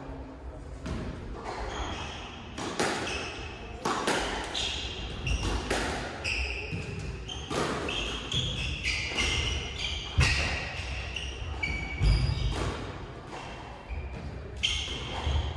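Squash rally: a hard rubber ball cracks off rackets and thuds against the walls about once a second, while court shoes squeak in short chirps and footsteps thud on the wooden floor as the players chase it.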